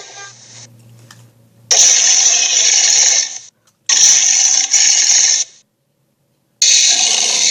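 Three harsh, hissy rasping bursts, each one to two seconds long, that start and cut off abruptly with dead silence between them: edited sound-effect clips.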